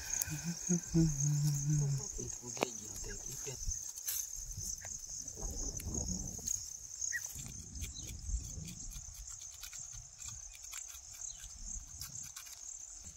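Steady high-pitched chorus of insects chirping, with scattered light knocks and rustles of sticks and leaves being handled.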